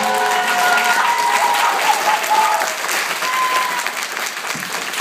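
Audience clapping, with a few voices calling out, as the last of the dance music dies away in the first second or so.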